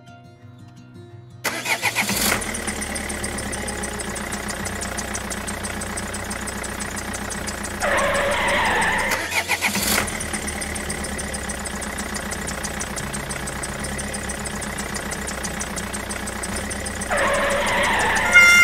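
Tractor engine sound starting abruptly about a second and a half in, then running steadily with a fast, even pulse. A louder, higher noise joins it for about a second around eight seconds in and again near the end.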